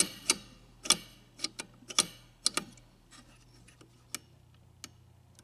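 Pinball machine ratchet mechanism worked by hand: the coil plunger is pushed in and a pawl clicks against the teeth of a gear. There are about a dozen sharp clicks, mostly in pairs, in the first two and a half seconds, then two lone clicks. The pawl is slipping off the tooth because the gear has slipped back, its front retaining piece being off.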